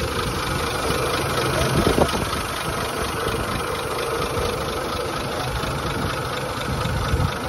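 The straight-six engine of a 1920s Springfield Rolls-Royce Silver Ghost idling steadily, just after being started.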